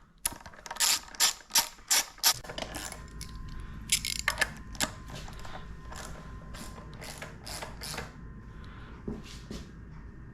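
Ratchet wrench clicking in short quick strokes as 12 mm bolts are driven back in. The clicks are loudest in the first half and lighter later on.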